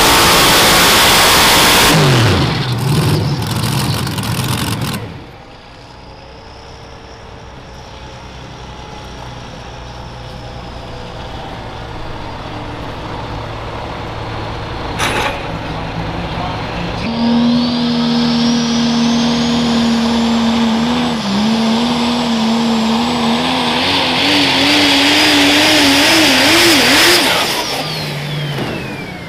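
Supercharged multi-engine modified pulling tractor at full throttle, cutting out about two seconds in, its pitch falling away. Later a diesel pulling truck runs under load, a high whistle rising over its engine and falling away near the end.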